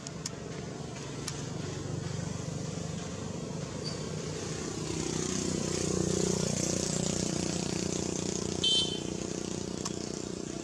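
Motor vehicle engine running nearby, a steady low hum that swells and then eases off as it passes. A brief high-pitched squeak sounds near the end.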